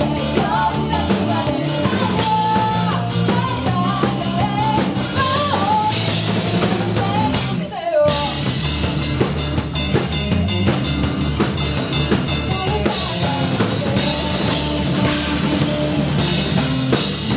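Band music driven by a full drum kit, with bass drum and snare hits under a wandering melodic line. The music drops out for a moment about eight seconds in, then comes straight back.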